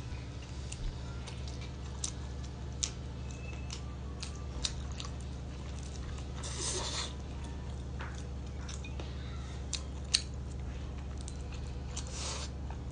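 Close-up mouth sounds of eating a soft, chewy, gelatinous food: scattered wet smacks and clicks, with two longer slurps, about six and a half seconds in and again near the end, over a steady low hum.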